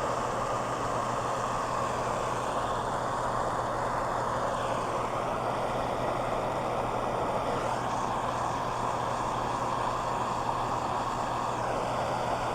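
Handheld gas torch flame burning steadily with an even hiss, heating a copper pipe fitting so that the solder will melt into the joint.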